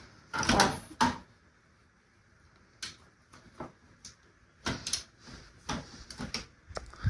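Scattered clicks and knocks of hard plastic parts from a radio-cassette CD player being handled during disassembly, coming irregularly from about three seconds in.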